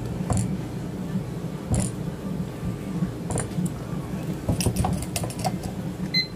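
Cast-iron bubble waffle iron being shut over its batter and handled: sharp metal clicks and clanks, a few spaced out and then a quick run of them about two-thirds of the way through, over a steady low hum.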